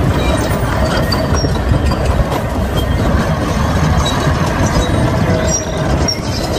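Steady, loud rumbling vehicle-like noise with some clatter, cutting off near the end.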